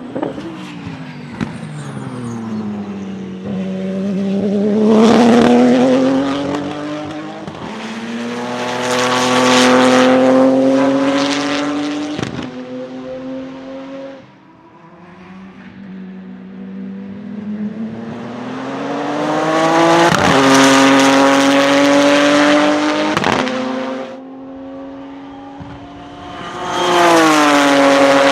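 Porsche 997 GT2 RSR's twin-turbo 3.9-litre flat-six running hard on track, the revs climbing and breaking off sharply at quick sequential gear changes. It falls to its quietest around halfway, then pulls up to loud peaks again.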